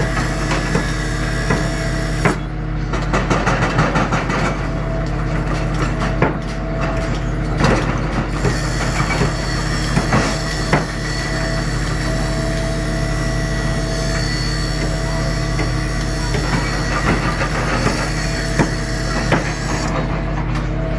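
Tracked excavator fitted with a hydraulic breaker: its diesel engine runs steadily under rapid clattering and knocks as the breaker works the rock. The knocking is densest from about two to eight seconds in, then comes in scattered bursts.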